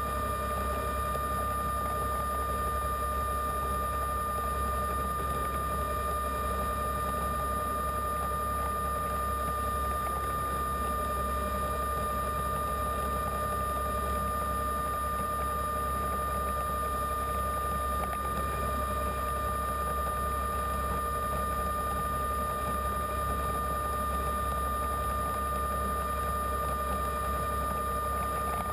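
Underwater scooter (diver propulsion vehicle) motor running at a constant speed, heard underwater: a steady whine over a low hum.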